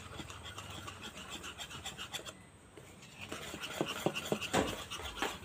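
A wire whisk beating a thick semolina-and-flour batter in a bowl: quick, light scraping strokes of the wires against the bowl, louder and more distinct from about three seconds in.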